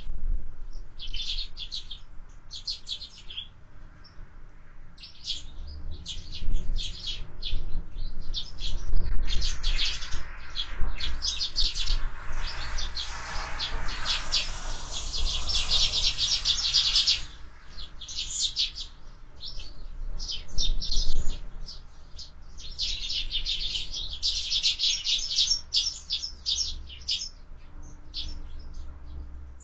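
A flock of sparrows chirping and chattering at a feeder, in quick overlapping chirps that swell into dense bursts of chatter twice. A low rumble of wind sits underneath.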